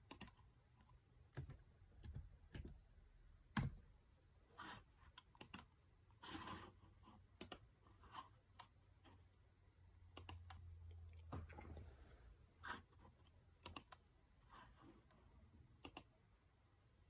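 Faint, irregular clicking of a computer mouse and laptop keys, a dozen or more sharp clicks spread unevenly with short pauses between them.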